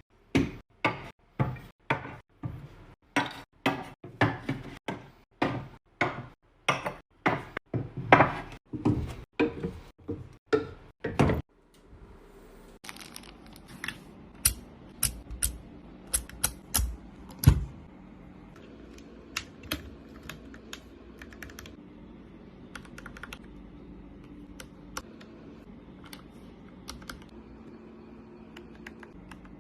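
Computer keyboard keys struck one at a time, about two loud clacks a second. About twelve seconds in they give way to fainter, irregular key clicks.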